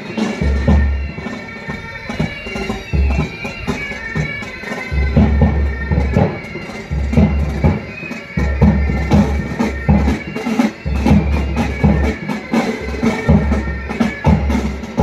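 Military pipe band playing while marching: bagpipes sound a tune over their steady drone, with bass and snare drums beating time.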